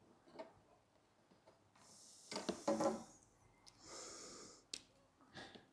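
A man breathing and sniffing close to the microphone, with a brief low murmur about halfway through and a single sharp click shortly after.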